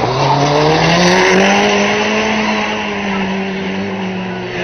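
Banger race car engine revving up hard over about the first second and then held at high revs as the car accelerates away, with tyres skidding on the tarmac early on.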